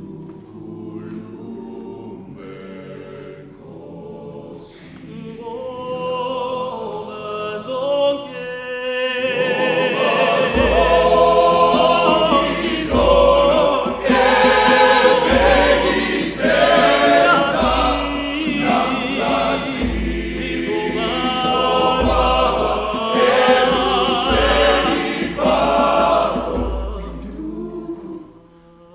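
Male choir singing, starting softly and swelling to full voice about ten seconds in, when a deep beat comes in about every second and a half.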